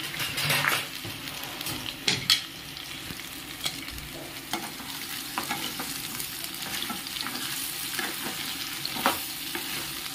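Raw mango strips frying in hot tempering oil in a pan: a steady sizzle while a spoon stirs them, scraping and knocking against the pan now and then.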